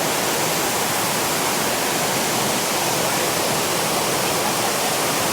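Creek water rushing, a steady, even noise that holds at one level throughout.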